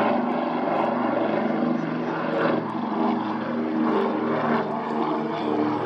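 Consolidated PBY-5A Catalina's two radial engines running at high power, a steady propeller drone.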